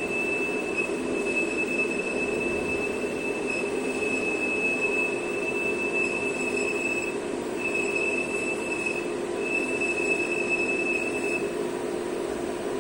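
CNC lathe spindle turning while the tool takes a cut on a test piece: a steady mechanical hum with a high, thin whine over it. The whine breaks off briefly twice and stops near the end.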